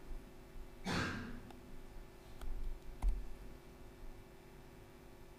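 A sigh, a breath pushed out into a microphone, about a second in, followed by two sharp clicks from a laptop keyboard being typed on. A faint steady hum runs underneath.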